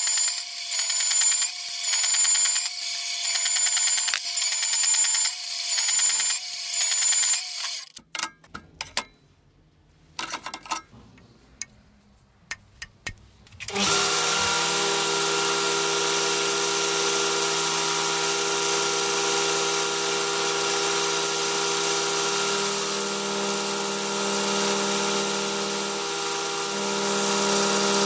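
An electric power tool whining in regular surges about once a second, then a pause broken by a few clicks, then running steadily again for the second half.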